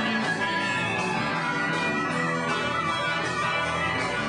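Live rock band playing loud, dense guitar music that runs on without a break.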